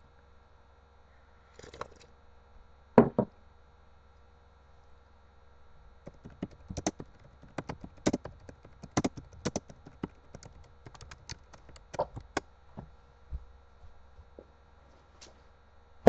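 Irregular sharp clicks and taps: a single louder knock, then a rapid, uneven run of clicks lasting several seconds, over a faint steady electrical hum.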